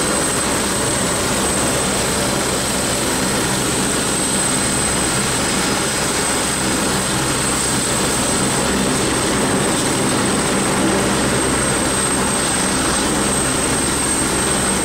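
Steady jet-turbine running sound at a parked business jet: a constant roar with a thin, steady high-pitched whine.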